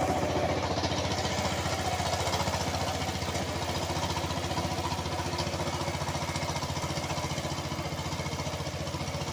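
Power tiller engine running steadily with a rapid, even putter.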